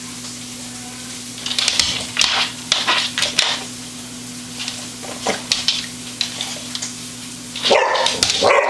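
Dog going after an earwig: short noisy bursts of snuffling and scuffling from about a second and a half in, then a louder outburst of barking near the end.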